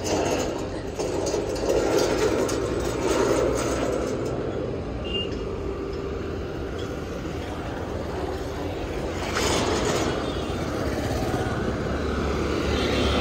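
Road traffic: motorcycles and scooters passing, with a steady engine drone underneath. The traffic noise swells about nine and a half seconds in and again near the end.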